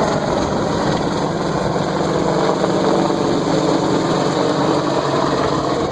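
AH-64 Apache helicopter flying close by: the steady, loud sound of its rotor and twin turboshaft engines.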